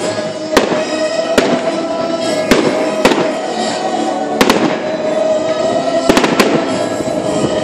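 Aerial fireworks bursting, a string of sharp bangs roughly one a second with crackling between them, over background music with a held note.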